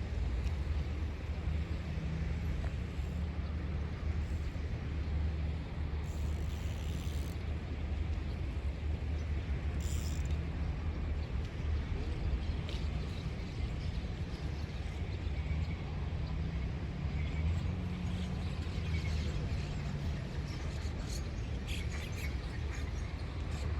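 Steady low rumble of wind buffeting the microphone outdoors, with faint bird chirps near the end.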